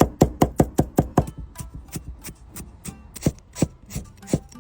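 Kitchen knife chopping vegetables on a cutting board: a fast run of chops in the first second or so, then slower, irregular chops.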